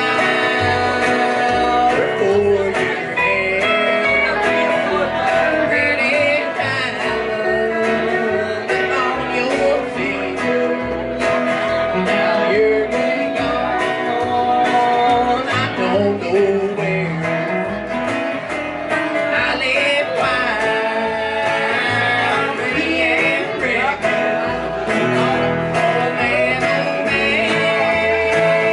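A live country band playing: electric guitar, upright bass and acoustic guitar, with male singing.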